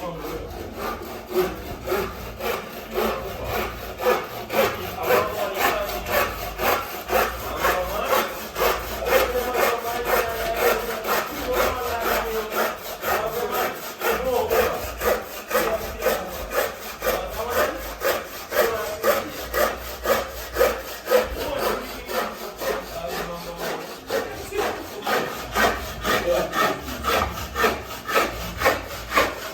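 Hand saw cutting through a wooden board in steady, rhythmic back-and-forth strokes, about two a second.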